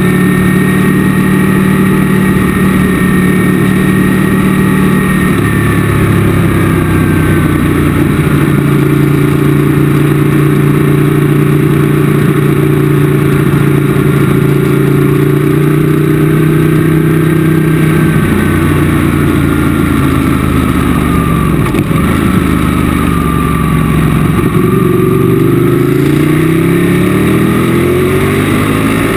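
Onboard sound of a sportbike's engine at speed on a racetrack, heard from a camera mounted on the bike. The engine note holds steady through long bends, drops as the rider slows about two-thirds of the way through, then climbs in pitch as the bike accelerates near the end.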